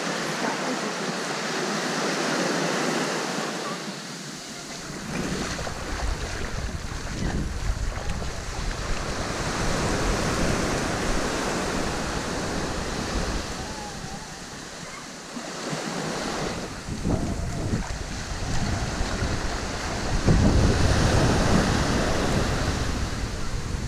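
Small waves washing onto a sandy shore, with wind buffeting the microphone in gusts, strongest near the end.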